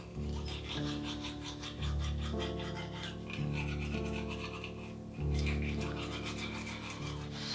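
Toothbrush scrubbing teeth in quick back-and-forth strokes, over a score of low sustained chords that change every second or so.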